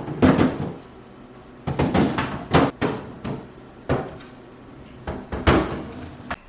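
Wooden flat-pack dresser parts knocking and clattering during assembly: a series of sharp knocks mixed with short scraping rattles, several a second apart.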